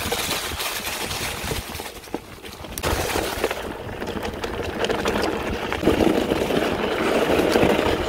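Mountain bike rolling fast over a dirt track strewn with dry leaves: tyres crunching and the bike rattling in a dense clatter of small knocks over the bumps.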